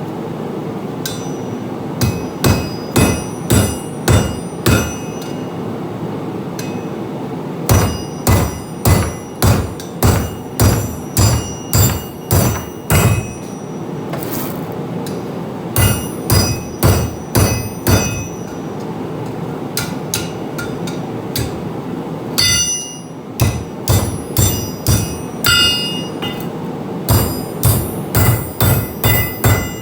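Hand hammer striking flat steel on an anvil to fold it, in runs of ringing metallic blows about two a second with short pauses between them, over a steady background rush.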